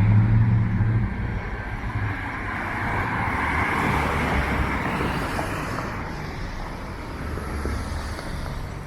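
Street traffic: a motor vehicle's engine running close by at the start, with road noise swelling around the middle and then fading.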